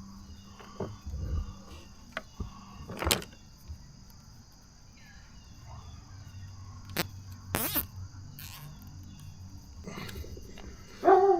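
Scattered light clicks and knocks of metal parts and tools handled while the scooter's wheel and brake rotor are refitted, over a steady high chirring of crickets. A dog barks once near the end.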